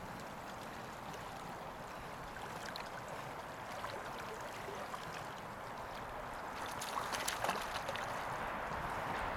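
Steady rush of river current with wind on the microphone, and a short cluster of faint clicks about seven seconds in.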